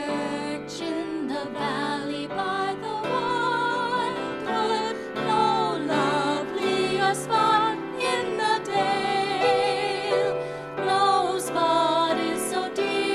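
Music: a song with a singing voice holding wavering notes over accompaniment.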